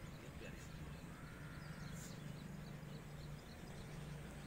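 Faint outdoor ambience: small birds chirping over a steady low hum.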